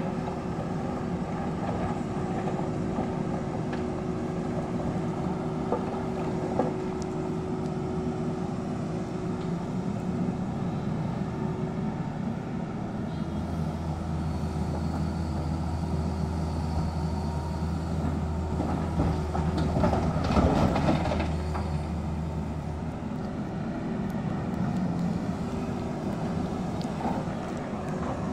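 Crawler excavator's diesel engine running steadily under hydraulic work, its note deepening and growing louder for about ten seconds from near the middle as the boom swings up over the tipper truck. Around two-thirds of the way through comes a short, loud clatter of rock dropping into the truck's steel body.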